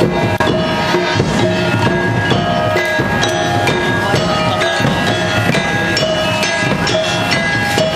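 Javanese gamelan music: sustained ringing metallophone and gong tones over a steady run of drum strokes.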